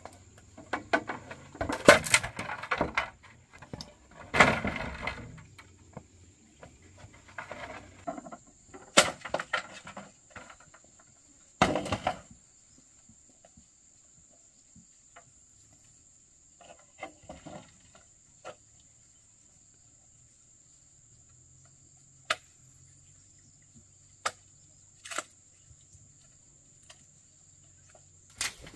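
An insect's steady high-pitched drone, with scattered rustling and sharp knocks from handling and work, busiest in the first dozen seconds and then only the odd click.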